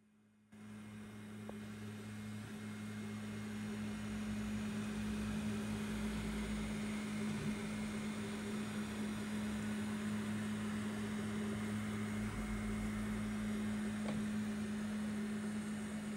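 Voron 2.4 3D printer running while printing its first layer: a steady hum and whir of its cooling fans and stepper motors. The sound cuts in suddenly about half a second in and grows a little louder over the next few seconds.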